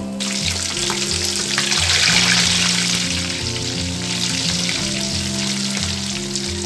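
Pork mesentery (chicharon bulaklak) deep-frying in a wok of hot oil, sizzling loudly while being stirred with a slotted spoon. The sizzle starts abruptly and is loudest about two seconds in. Background music with a steady beat plays underneath.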